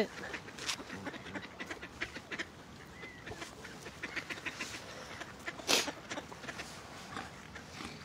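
A flock of mallard ducks quacking in short, scattered calls, with one louder, sharp noise a little before six seconds in.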